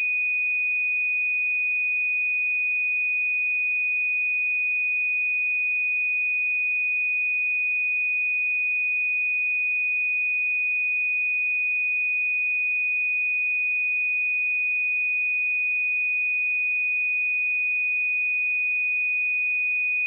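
A steady pure 2481 Hz sine-wave test tone, one unchanging high-pitched note at constant loudness.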